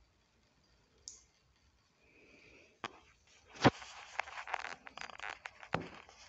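Handling noise from the filming phone being moved: a sharp knock, then a dense run of rubbing, crackling and clicking with a second knock near the end.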